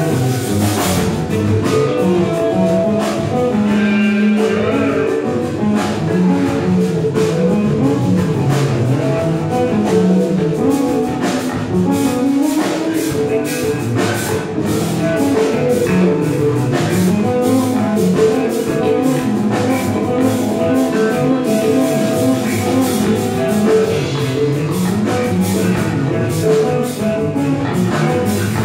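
Live band jamming with electric guitar, drum kit and saxophone. A low line wanders up and down under held notes and a steady drumbeat.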